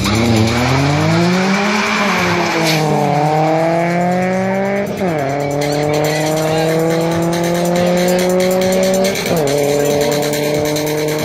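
Two four-cylinder cars, a turbocharged Audi 1.8T and a BMW 1.8ti, launching side by side with tyre squeal and accelerating hard at full throttle. The engine pitch climbs steadily and drops sharply at each upshift, about two, five and nine seconds in.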